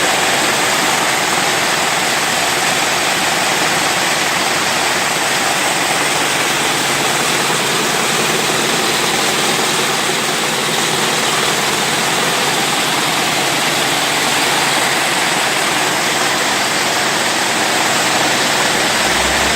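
48-spindle cord braiding machine running at steady speed, its spindle carriers circling the track in an even, continuous mechanical din.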